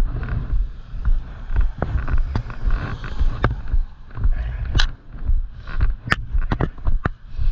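Footsteps of someone walking on a wet roadside, a low rumble swelling with each stride, with scattered sharp clicks and ticks.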